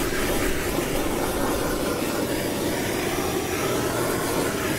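Handheld blowtorch burning with a steady rushing hiss, its flame played over a frozen block of Coca-Cola to melt it.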